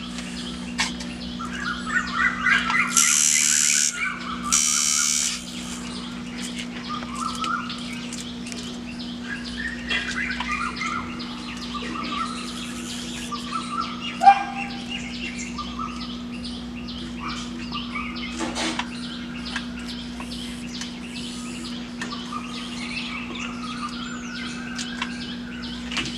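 Small birds chirping over and over, with a steady low hum underneath. Two short loud hissing bursts come about three and five seconds in.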